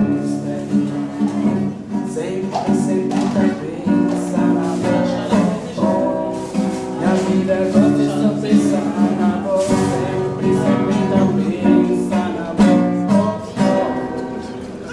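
Acoustic guitar strummed in a steady rhythm with a voice singing along, an informal live performance by Cape Verdean musicians recorded on the spot; it eases off near the end.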